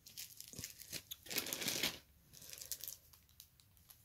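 Small clear plastic component bags crinkling and rustling as they are handled, in several short bursts, the loudest about a second and a half in.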